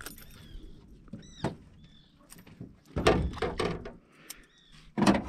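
Knocks and clatter of gear handled in a metal fishing boat: scattered small clicks, then a louder rattling knock about three seconds in and another near the end.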